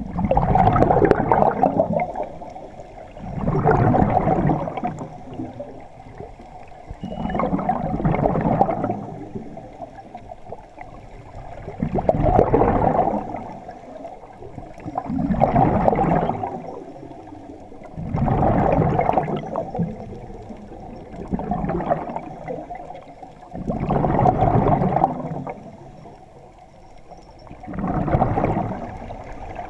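Scuba diver breathing through a regulator underwater: a regular cycle of inhalations and gurgling bursts of exhaled bubbles, about one breath every three to four seconds.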